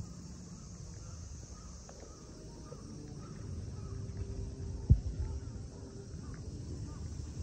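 Cicadas droning steadily in the park trees, a continuous high shrill. Underneath are low thumps from walking, with one sharper knock about five seconds in.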